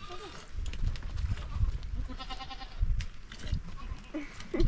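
Flock livestock bleating: one quavering bleat about two seconds in, with shorter calls at the start and near the end, over low rumbling bursts.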